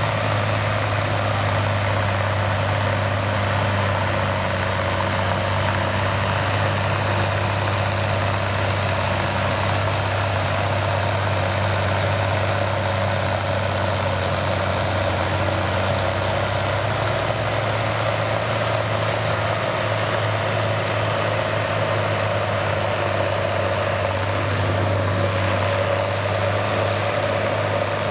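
Tractor diesel engine running hard and steady under heavy load as it drags a weight-transfer sledge, its pitch nearly unchanged throughout.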